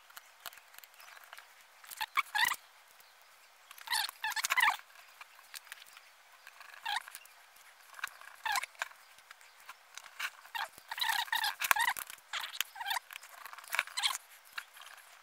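Handling noise from reassembling an ASUS ROG graphics card: the plastic fan shroud and metal parts clicking, tapping and scraping in short scattered clusters, busier near the end.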